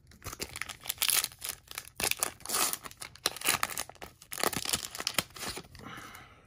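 Foil wrapper of an Upper Deck Series 1 hockey card pack being torn open and crinkled by hand. It is a run of sharp crackles that dies away near the end.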